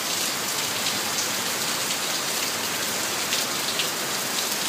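Steady rain falling on a wet tiled floor: an even hiss with a few sharper drop ticks.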